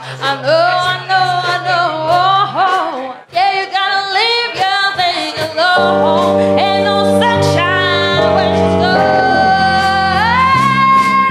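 Live soul band: a woman singing a wavering melodic line over drums and cymbals. The band comes in with sustained chords about six seconds in, and she ends on a long held note.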